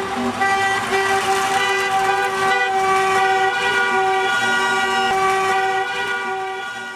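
Car horns honking in long, overlapping held blasts, several at once, the celebratory honking of a wedding car procession; the sound fades out near the end.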